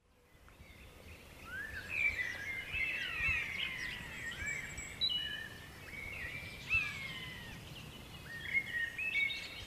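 Woodland birdsong: several small songbirds singing and calling at once, a busy mix of quick chirps, short trills and whistled notes that slide up and down, fading in over the first couple of seconds.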